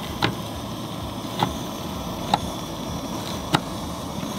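Kitchen knife slicing a shallot on a plastic cutting board: four sharp taps of the blade hitting the board, about a second apart, over a steady background hiss.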